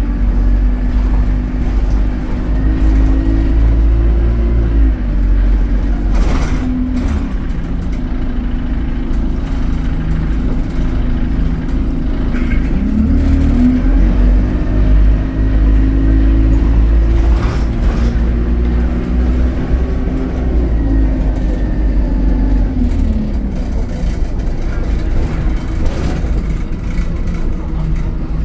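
Alexander Dennis Enviro200 bus's diesel engine and exhaust, the engine note rising and falling back three times as the bus pulls away and eases off, over a heavy low rumble; the bus is running in limp mode, with an exhaust sound likened to a Euro 3 Dart. A few sharp knocks cut in along the way.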